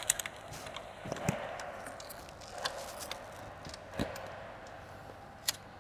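Scattered metallic clicks and taps of hand tools and bolts against engine parts as a supercharger is lined up and bolted down by hand, with the sharpest clicks at the very start and again about four and five and a half seconds in.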